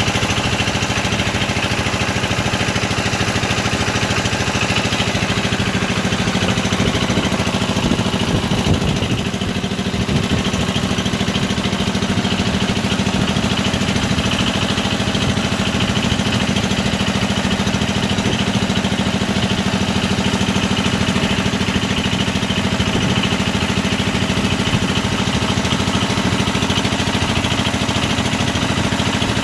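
Engine of a motorized wooden country boat running steadily under way, with water rushing past the hull.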